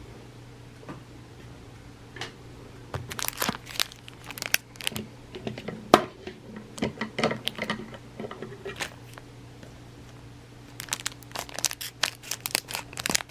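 A 1988 Donruss baseball card pack wrapper crinkling and tearing as it is opened, in two stretches of quick crackling separated by a pause of about two seconds.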